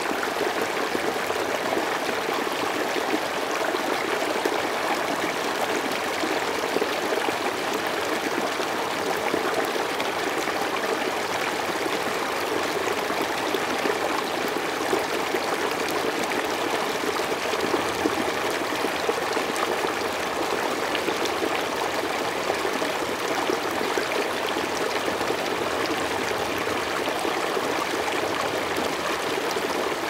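Shallow river water rushing over rocks in rapids, a steady unbroken rush with no breaks or changes.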